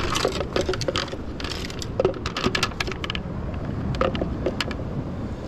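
Irregular clicks, taps and light knocks of fishing gear being handled, the rod and a plastic bait tub, over a steady low rumble of sea swell and wind.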